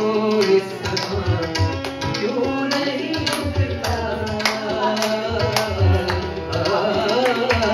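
Tabla playing a rhythmic accompaniment, with deep bass strokes and sharp strikes, under a sustained melodic line in a ghazal instrumental interlude.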